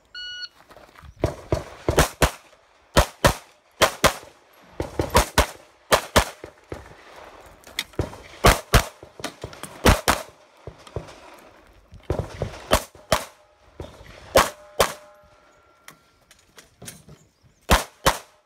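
Shot timer's start beep, then a Glock 19 9mm pistol fired rapidly in pairs and short strings, with brief pauses between groups of shots. One shot about two-thirds through is followed by a short ringing tone.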